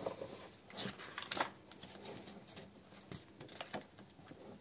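Paper rustling and crackling as a page of a scrapbooking paper pad is handled and turned over, with a few crisp flicks of the sheet, the sharpest about a second and a half in.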